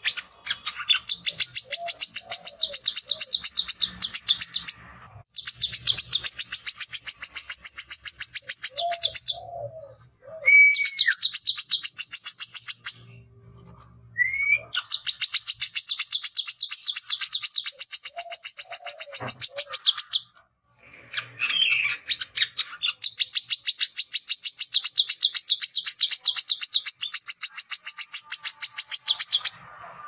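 Male brown-throated sunbird (kolibri kelapa) singing the fast, high chattering song that keepers call "ngecret". It comes as five long runs of quickly repeated notes, each a few seconds long, with brief pauses between them and a few lower slurred whistles. This is the male's chatter when seeking a rival to fight.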